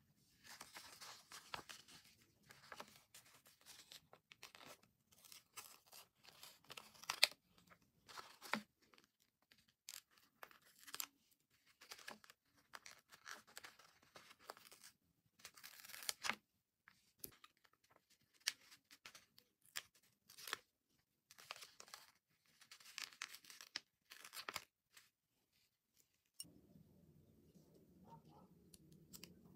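Vinyl stickers being peeled off a glossy sticker sheet and pressed onto paper: short, irregular crackling rustles of the backing paper. The rustling stops near the end, leaving a faint low hum.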